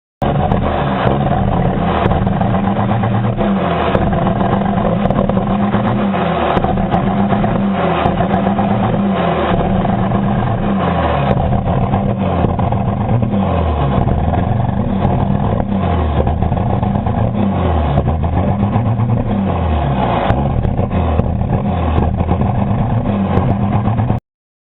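1995 Dodge Ram 2500's Cummins 5.9 L inline-six diesel, revved up and down over and over, its pitch rising and falling every second or two. The stock turbocharger is failing.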